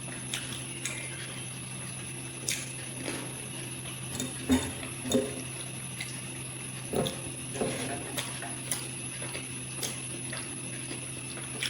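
A person eating: a few short chewing and slurping mouth sounds and light clicks, over a steady hum.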